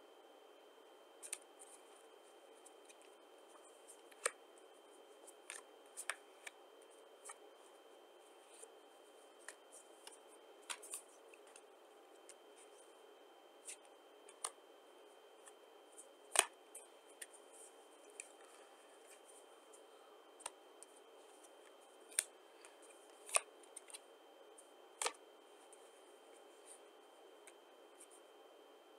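Playing cards being handled: short, sharp snaps and flicks at irregular intervals as cards are drawn from the hand and put down on the piles.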